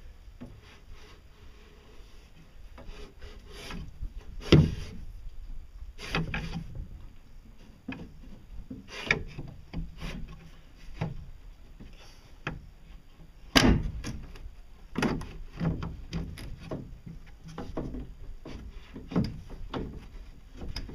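Metal propeller shaft and roller bearing being worked by hand into the shaft tube of a fiberglass boat hull: irregular rubbing, scraping and clicking, with two louder knocks, one about four seconds in and one a little past the middle.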